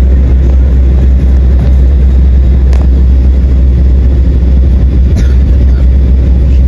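Loud, steady low rumble of an airliner heard from inside the passenger cabin, from its engines and the air around it, with a couple of faint clicks about three and five seconds in.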